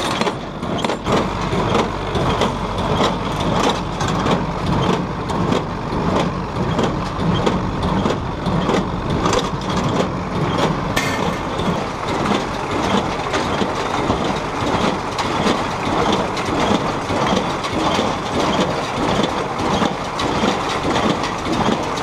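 New Idea inline square baler running under load: a steady mechanical clatter of rapid knocks and rattles from the pickup, feeder and plunger packing hay into the bale chamber.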